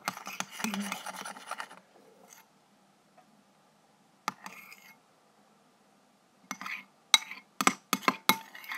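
A utensil stirring a mix of glue and water in a container, scraping and rubbing for about two seconds. Then one click, and near the end a quick run of sharp knocks and clicks from objects being handled.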